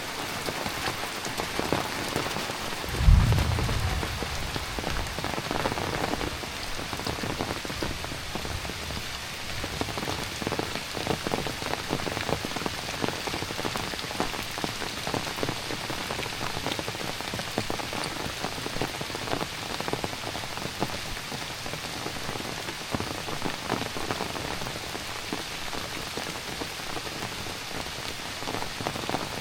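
Heavy rain falling steadily, with a dense patter of close drop strikes. A single deep thump about three seconds in is the loudest sound.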